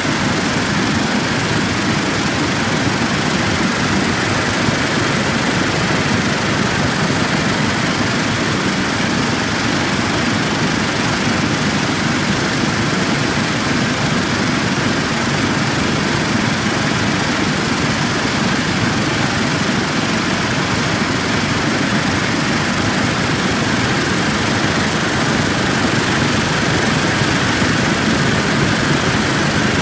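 Virto C-Line VPM 1200 circular vibratory screen running steadily, its vibrating deck mixed with water and plastic-flake slurry splashing from the feed cone onto the screen.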